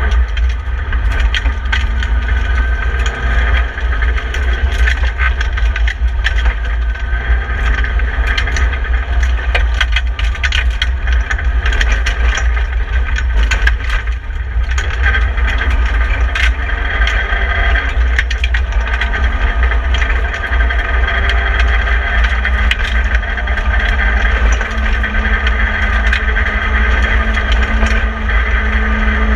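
In-cabin sound of a BMW E30 318i rally car's four-cylinder engine running hard at stage speed on a dirt road, over a heavy low rumble, with frequent sharp ticks, knocks and rattles through the bare, roll-caged cabin.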